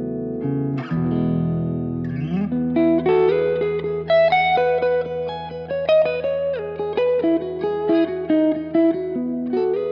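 1976 Gibson ES-335 electric guitar played through an effects pedalboard. A chord rings for about the first second and another is struck just after. From about two and a half seconds in, a low note is held under a single-note melody with some bent notes.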